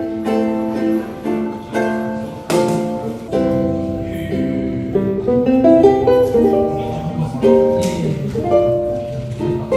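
Instrumental music played on a plucked string instrument: a melody of picked notes over chords, with a sharp chord struck about two and a half seconds in and again near eight seconds.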